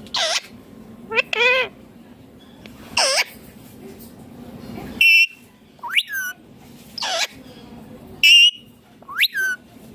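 Indian ringneck parakeet calling: a series of about ten short, sharp squawks and chirps spaced roughly a second apart, several sweeping upward in pitch.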